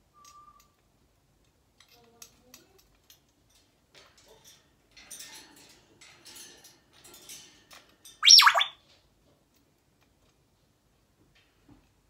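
A few faint clicks and soft sounds, then an African grey parrot gives one loud squawk about eight seconds in: a brief call that slides steeply down in pitch.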